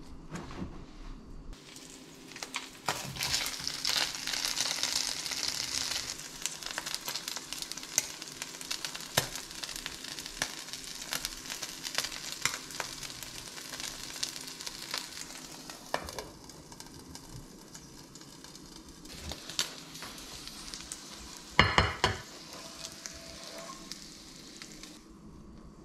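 Tortilla pizza frying in a nonstick pan, a hiss of sizzling that is loudest a few seconds in and then settles lower, with scattered clicks and scrapes as it is handled in the pan. Near the end, one short loud clatter.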